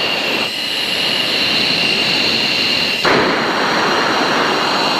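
F-16 jet engine and airflow noise heard inside the cockpit in flight: a loud, steady rushing with a thin high whine over it. About three seconds in it shifts abruptly to a louder, rougher rush.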